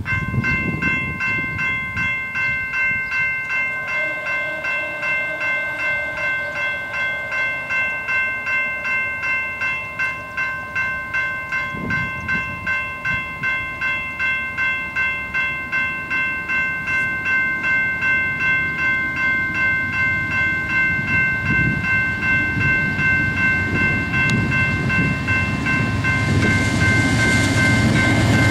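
Railroad grade-crossing warning bell ringing steadily, about two strokes a second, as the crossing signals flash. Near the end the rumble of an approaching BNSF freight train grows under it.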